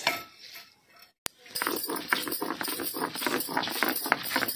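Spices being ground by hand on a sil-batta, a stone roller rubbed back and forth over a stone grinding slab, crushing dried red chillies, garlic and whole seeds. The rapid grating and crunching starts about a second and a half in.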